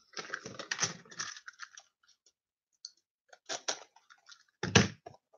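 Crinkly rustling and clicking of packaging being handled, with two louder knocks in the second half, the second the loudest.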